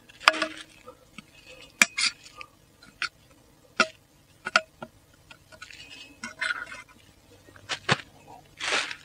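Metal clinks and scrapes of a clean-out tool pushing soil out of a hand soil auger's bit: a scattering of sharp clicks, with a longer scrape near the end.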